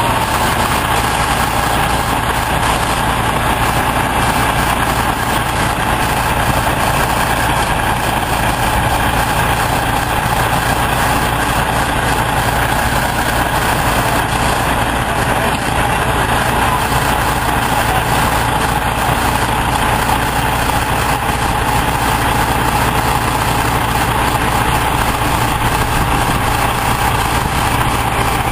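Heavy diesel engines of a dump truck and an asphalt paver running steadily at close range while the raised dump box unloads into the paver, with a steady mid-pitched whine over the low engine drone.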